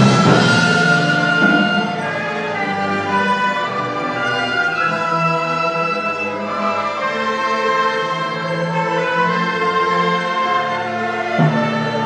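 A Chinese orchestra, with cellos and double basses, playing live. It comes out of a loud swell whose bright wash dies away in the first couple of seconds, then holds layered, sustained chords, with low instruments re-entering just before the end.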